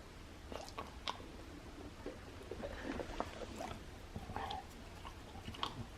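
Golden retriever puppy chewing a jerky dog treat, with faint, irregular crunches and clicks.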